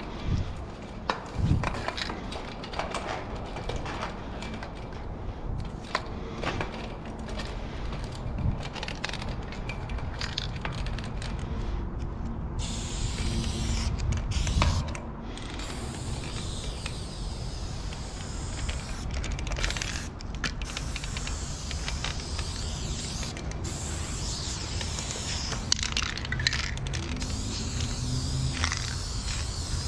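Clicks and knocks from an aluminium telescoping ladder being handled and climbed, then, about a third of the way in, an aerosol spray paint can hissing steadily as black fill-in is sprayed, broken by a few short pauses.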